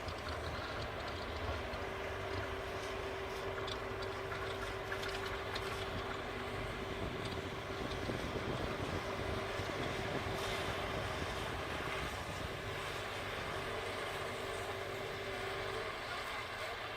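A steady engine-like rumble and noise, with a held hum that sets in about two seconds in and stops shortly before the end.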